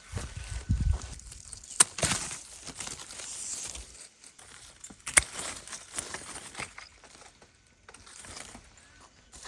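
Rustling and crinkling of plants being handled, with two sharp clicks about two and five seconds in.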